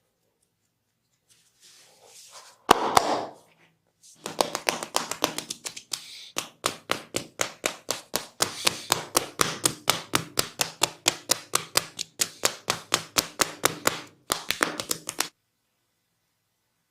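Hands slapping and chopping on the body in a percussive massage: a single sharp smack, then a fast, even run of hand strikes at about four a second that goes on for about eleven seconds, with two brief pauses.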